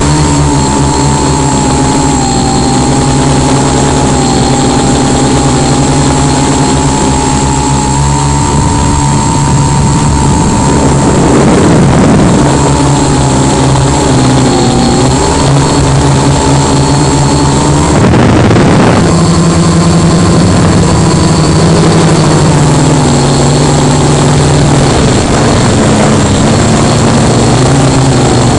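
A tricopter's electric motors and propellers whirring in flight, heard close up from on board, their pitch wavering up and down as the throttle changes. About two-thirds of the way through there is a brief rush of noise.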